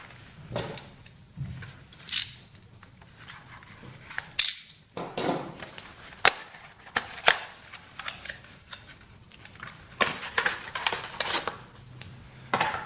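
Hands handling small hard parts and packaging: an irregular run of sharp clicks, snaps and crinkling, in several clusters.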